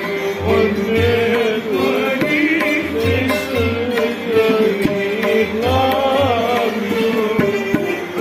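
Live Sufi devotional music: a wavering, sliding melody line over plucked long-necked strings, with a steady beat of hand-drum strokes.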